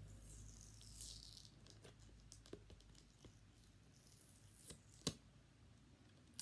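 Faint rustling and a few light clicks of a cardboard doll box being handled and opened.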